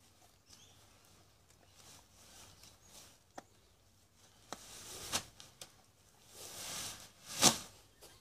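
Nylon pop-up shower tent being handled on grass: scattered rustles and clicks of the fabric and spring-steel hoops, with louder swishes about five and six to seven seconds in and the loudest sharp swish near the end as the coiled frame opens out flat.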